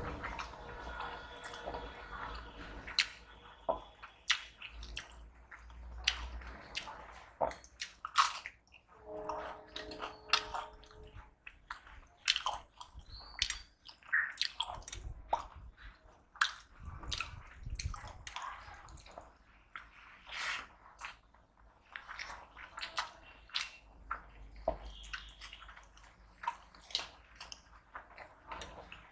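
Close-miked eating: a man chewing rice and curry with wet mouth smacks and clicks, and the soft squish of fingers mixing rice on the plate, in irregular bursts.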